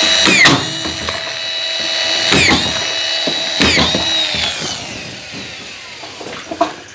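Power drill driving screws into timber: the motor whine spins up in several quick trigger pulls, runs steadily, then winds down and fades near the end.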